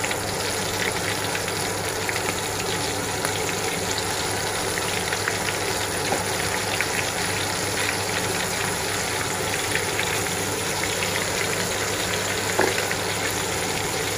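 Batter-coated squid deep-frying in hot oil in a wok: steady sizzling with frequent small crackles, over a steady low hum. One slightly louder click comes near the end.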